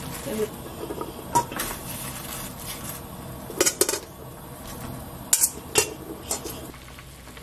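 Metal tongs clinking against a stainless steel saucepan, several sharp clinks spread through, while butterbur stems are put into boiling water; a steady bubbling hiss underneath.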